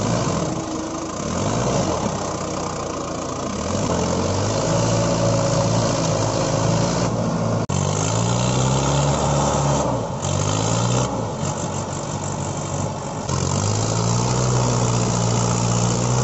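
Tractor engine sound idling and revving up and down in steps, with a few short breaks and a brief cut-out about halfway through.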